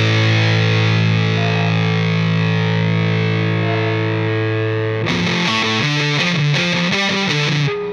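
Background rock music with distorted electric guitar: a held chord rings out, and about five seconds in a choppy riff of quick changing notes begins.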